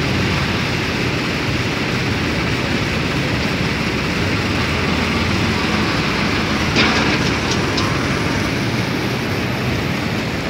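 Cotton ginning plant machinery and a hydraulic cotton loader running with a steady, loud mechanical drone, with a short clatter of sharp strokes about seven seconds in.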